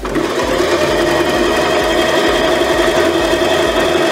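Singer Tradition 2250 domestic sewing machine stitching through four layers of medium-weight denim, its motor running steadily with an even hum.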